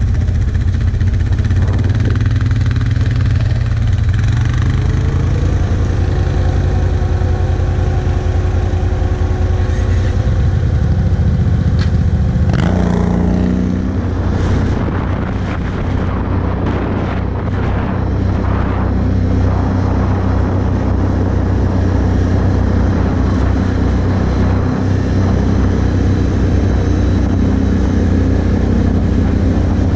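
Can-Am Outlander 1000 ATV's V-twin engine idling, then revving up about twelve seconds in as the quad pulls away, and running steadily at low road speed.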